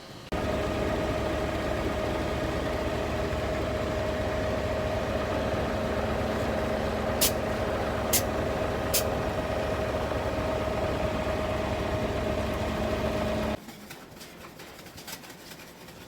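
Concrete mixer truck's engine running steadily with a steady tone over it, starting and stopping abruptly; three sharp clicks come about halfway through.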